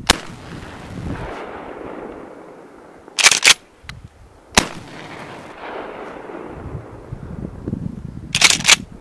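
Mossberg 500 12-gauge pump-action shotgun fired twice, right at the start and about four and a half seconds in, each shot followed by a long rolling echo. Between the shots and again near the end the pump is racked, two sharp metallic clacks in quick succession.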